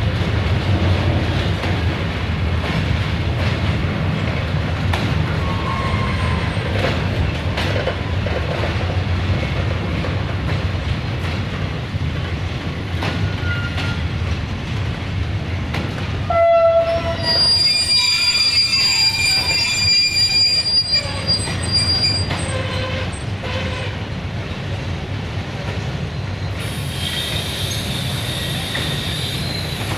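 Unicom Tranzit freight train's loaded flat wagons rolling past: a steady rumble with wheels clicking over rail joints. A little past halfway a high, steady metallic squeal rises from the wagons and holds for several seconds, and a fainter squeal returns near the end.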